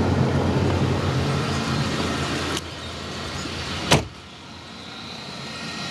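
A Buick 3.8-litre V6 idling. The sound drops in level about two and a half seconds in, and there is a single sharp thump near four seconds.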